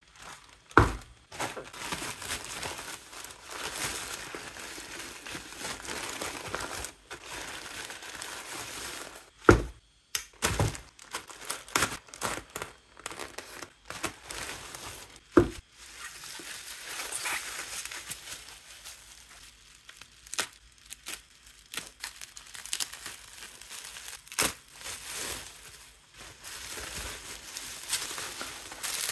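Plastic mailer bag crinkling and being torn open by hand, then bubble wrap crinkling as it is handled near the end, with a few sharp knocks along the way.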